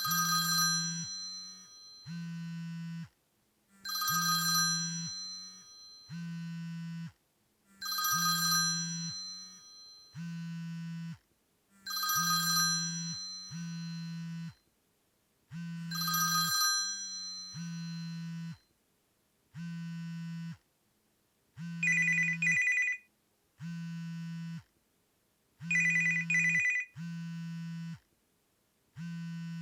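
Mobile phone ringing and vibrating at once: a chiming ringtone repeats about every four seconds while the vibration motor buzzes in one-second pulses about every two seconds. About two-thirds of the way through, the ringtone changes to a sharper trilling tone while the buzzing goes on.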